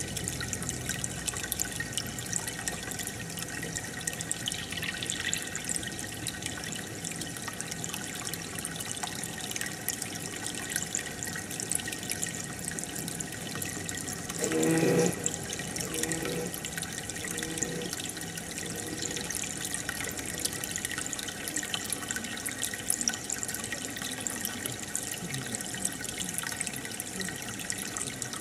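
Water trickling and dripping steadily in a home aquarium, with many small splashy clicks. A short louder sound comes about halfway through.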